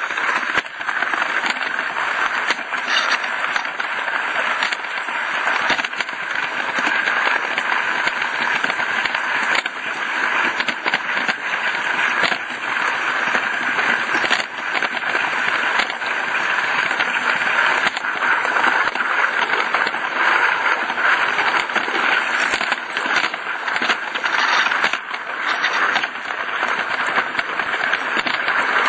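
Roundhouse Millie live steam model locomotive running: a steady hiss of steam with a continual crackling rattle of its wheels on the track.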